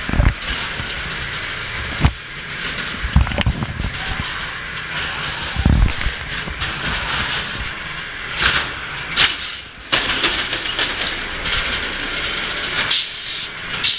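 Dark-ride car rolling and rattling along its track with a steady rumble, broken by a string of sharp clunks and bangs, the heaviest in the first six seconds.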